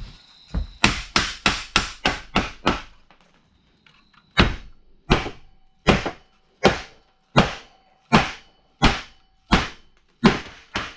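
Hammer blows on a steel frame horn, straightening the twisted metal: a quick run of about eight blows, a pause of about a second and a half, then slower, evenly paced strikes about every three-quarters of a second, with a faint metallic ring between them.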